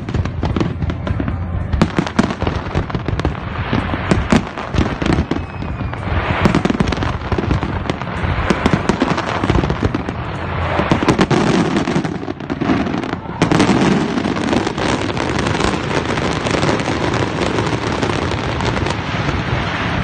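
Aerial fireworks display: many bangs and crackling bursts in quick succession, with hardly a break.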